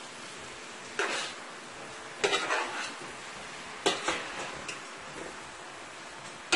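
Metal spoon knocking and scraping against a large stainless steel pot as boiled ground provisions are tossed, a few sharp clanks a second or so apart, over a steady faint sizzle of frying.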